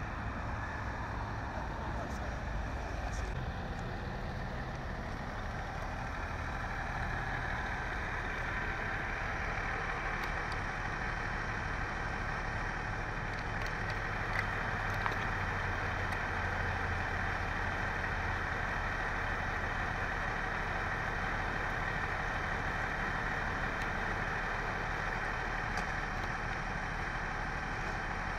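Vehicle engines idling steadily: a continuous low hum with a couple of faint clicks about halfway through.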